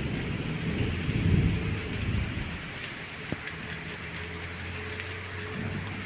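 Steady hiss of rain with a low rumble of distant thunder that swells about a second in and then fades, plus a single sharp click near the middle.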